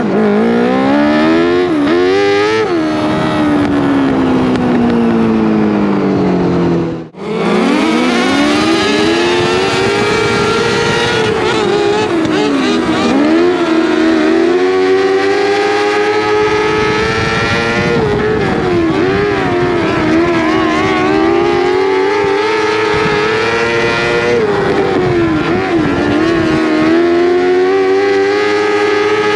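A 600cc micro sprint car's motorcycle engine heard from on board at racing speed. It revs hard, rising in pitch, then falls in pitch as the throttle lifts for the turns, again and again. The sound drops out briefly about seven seconds in.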